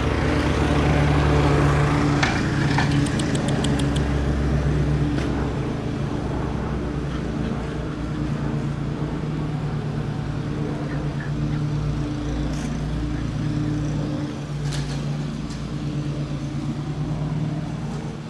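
Lawn mower engine running steadily at a constant pitch, gradually growing fainter.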